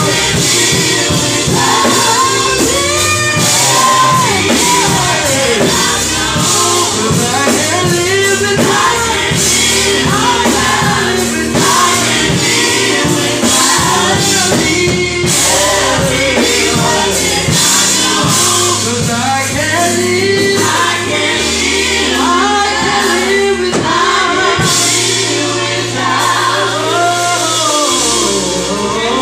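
Gospel praise team of male and female voices singing together into microphones, over an accompaniment with a stepping bass line and a steady beat.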